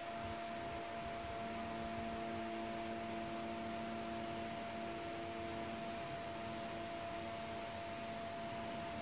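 Room tone: a steady high hum with fainter lower tones coming and going, over a constant hiss.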